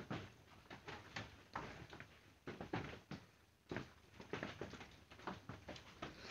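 Faint, irregular taps, about two a second, of a finger typing a password on a smartphone's touchscreen keyboard.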